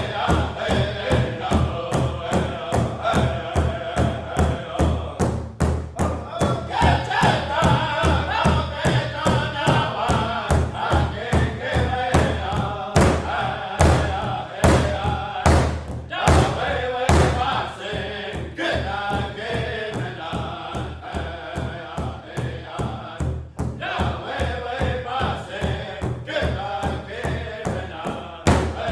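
A powwow drum group: several men strike one large shared drum together with drumsticks in a steady, even beat while singing together over it.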